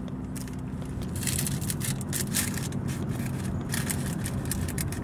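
Paper food bag crinkling and crackling in the hand in irregular bursts, over a steady low hum of the car.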